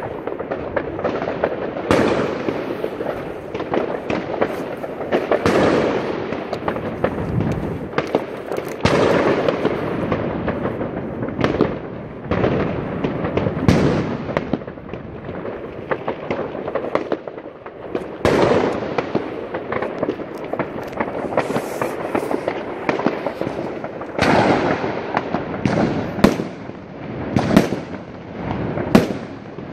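Many fireworks going off at once: a near-continuous din of bangs and crackling, with a sharp report every second or so and several of the loudest close together near the end.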